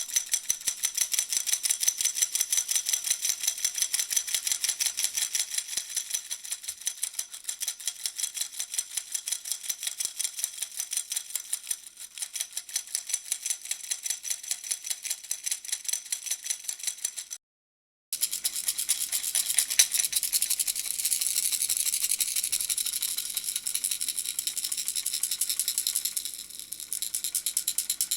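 Puppy-shaped baby rattle shaken in a fast, even rhythm, a rapid rattling. It cuts out completely for under a second about two-thirds of the way through, then starts again.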